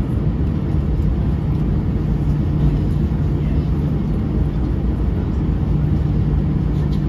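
Airbus A320 cabin noise while taxiing at slow speed: the engines at idle give a steady low hum with a constant tone.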